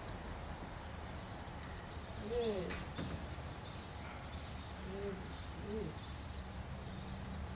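A few short, soft cooing calls from a bird over a low steady hum, with a faint knock about three seconds in.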